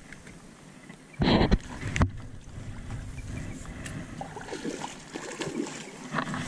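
Spinning reel and surface popper being fished: a short loud rush about a second in, a sharp click just after, then faint irregular clicks and small splashes as the popper is worked across the water.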